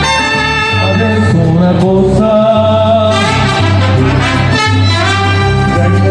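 Mariachi band playing, with trumpets carrying the melody over a bass line that steps from note to note.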